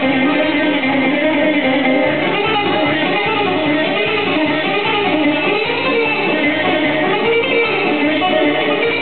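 Live Greek band music: a bouzouki plucking a melody over keyboards and a steady bass beat.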